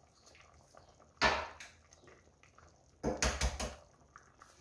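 Sharp kitchen knocks of eggs being cracked against a container's rim. There is one loud knock about a second in, then a quick run of several knocks about three seconds in.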